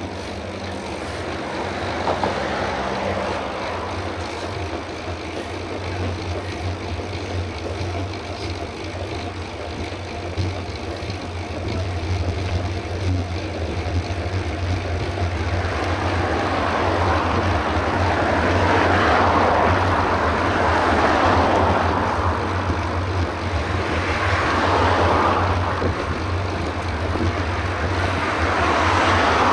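Wind rushing over the microphone of a camera riding on a moving bicycle, with a steady low rumble underneath. It grows louder about halfway through and swells and eases every couple of seconds.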